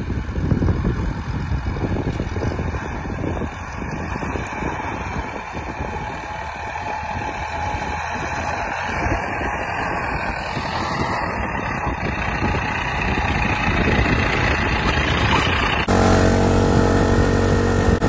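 IFA W50 4x4 truck's four-cylinder diesel engine running as the truck drives through snow, growing louder as it approaches. About two seconds before the end it cuts abruptly to a Steinel heat gun running with a steady humming whine.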